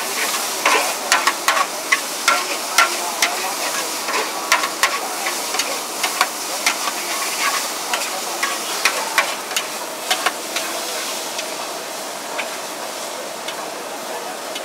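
Char kuey teow being stir-fried in a large wok over a high gas flame. Noodles sizzle and hiss steadily while a spatula clatters and scrapes against the wok again and again, the clatters thinning out after about ten seconds.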